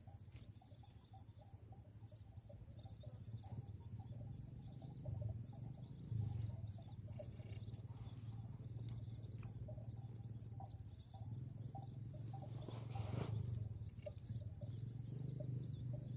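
Rural outdoor ambience: small birds chirping over a steady high-pitched insect drone and a low rumble. A short swell of hiss comes about thirteen seconds in.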